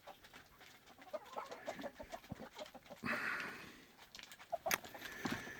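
A flock of chickens clucking softly, with scattered short clicks and a brief rustle about three seconds in.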